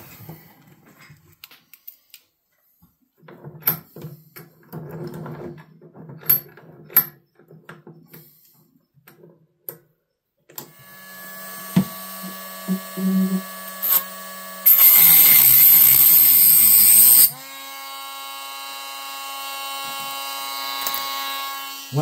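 Dremel rotary tool with a cut-off wheel spinning up about ten seconds in, after some clicks and knocks of handling. About halfway through it cuts off the protruding metal pin of a pocket knife's bail with a loud grinding that lasts a couple of seconds. It then runs on freely until the end.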